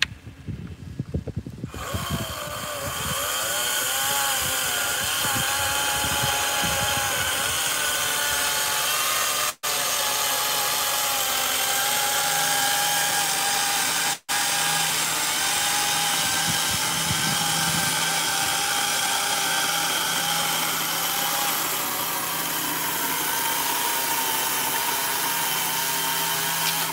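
Cordless battery chainsaw cutting thin cookies off a maple log in a runtime test: after a couple of seconds of short bursts it runs steadily under load with an even whine, broken by two split-second gaps.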